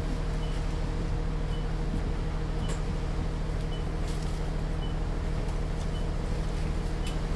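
Bus interior ambience: a steady low engine hum and rumble, with a short high blip about once a second and a few light rattles.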